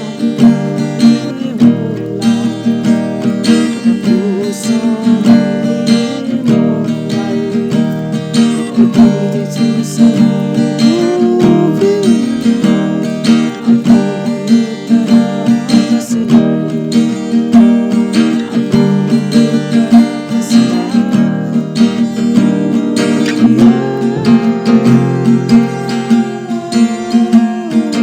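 Acoustic guitar strummed steadily in an instrumental break between sung verses of a song played live.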